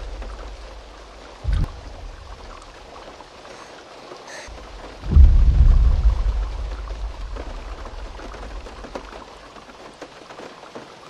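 Steady rain with deep booming thuds: a short one about a second and a half in, then a heavier one about five seconds in that rumbles away slowly.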